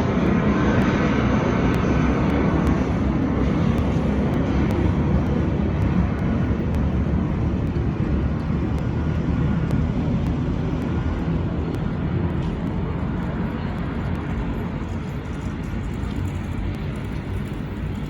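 Jet engine noise of an Airbus A319 with IAE V2500 turbofans, a steady rumble that slowly fades and loses its high end as the airliner draws away.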